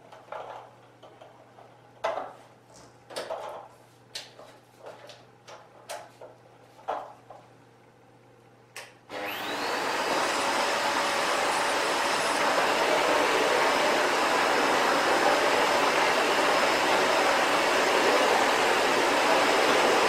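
Scattered knocks and clicks of handling for about nine seconds, then the Sebo Felix vacuum cleaner switches on. Its motor spins up with a rising whine and then runs steadily at full suction.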